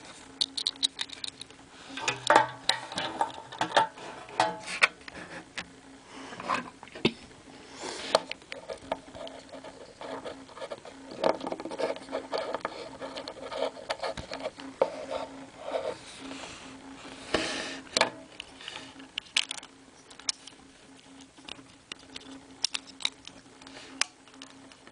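Plastic Bakugan toys handled by hand: irregular clicks, taps and rattles as a ball is turned in the fingers, snapped open and set down on a card, over a steady low hum.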